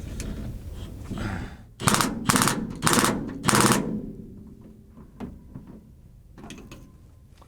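A power driver fired in four short bursts of rapid hammering clicks, tightening the hose clamps on a pickup's rubber fuel filler neck.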